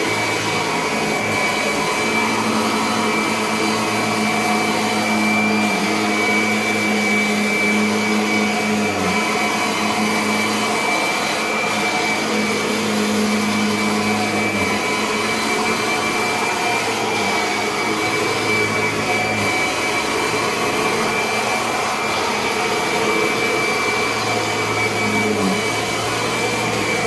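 Kirby vacuum cleaner running steadily, a high whine over its motor hum.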